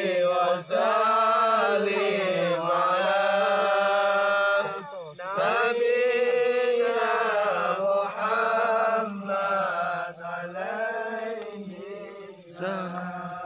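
A voice chanting Islamic sholawat in long, wavering held notes, with short breaks between phrases.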